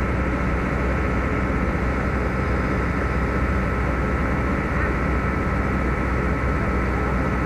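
Heavy diesel machinery running steadily, excavator and truck engines: a low drone with a constant high whine above it.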